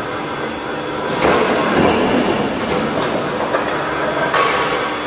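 Forging plant machinery running: a steady mechanical hum with hissing surges about a second in and again near the end.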